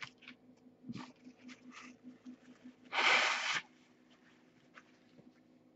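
A man blowing his nose once: a loud, breathy blast about half a second long, three seconds in. A few faint clicks come before it.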